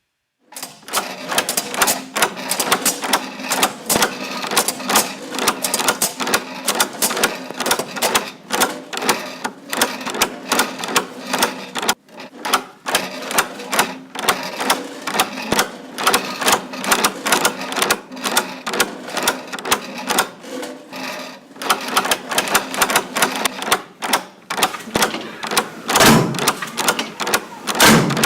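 Dense, irregular clicking and clattering, many sharp strikes a second, over a low steady hum.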